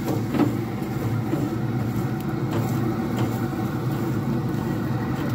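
Grill brush scrubbing the hot grates of a Traeger pellet grill, a few faint scraping strokes over a steady low hum.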